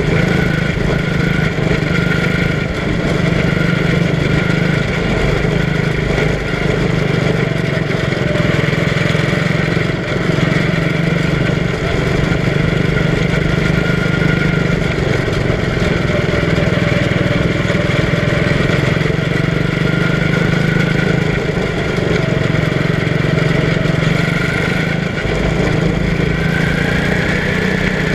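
Quarter midget race car's small single-cylinder engine running steadily at speed on the track, heard from an onboard camera mounted on the car, with a pitch that holds fairly even and rises and falls a little. Wind and tyre noise run underneath.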